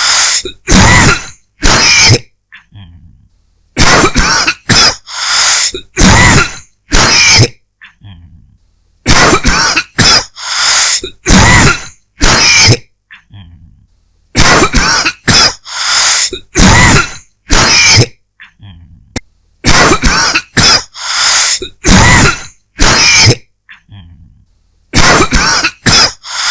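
A person's dry cough, coming in repeated fits of several coughs each. The fits are separated by short pauses and come about every five seconds.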